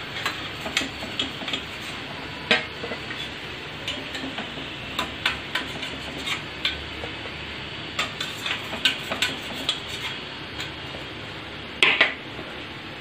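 A metal slotted spoon clinks and scrapes against a stainless steel pot of frying oil in scattered sharp taps over a steady hiss, with one louder clatter near the end as fried parcels are lifted out.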